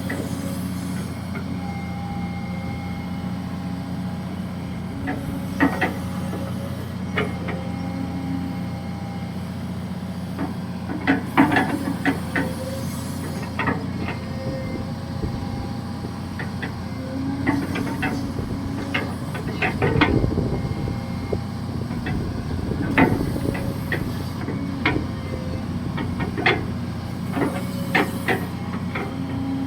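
Hydraulic excavator's diesel engine running steadily while it digs, with scattered sharp metallic clanks from the bucket and boom. There is a louder low surge about twenty seconds in.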